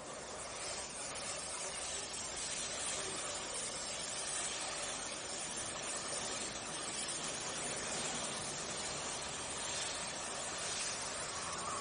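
Welding at a workpiece: a steady, even hiss that picks up slightly in the first second and then holds.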